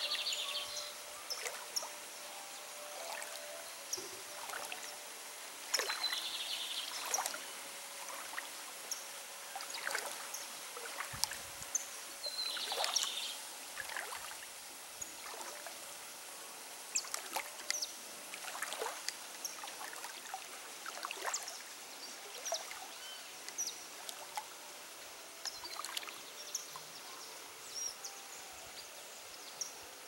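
Birds chirping and calling throughout, many short calls, with a harsher call repeating about every six seconds in the first half, over a steady trickle of water.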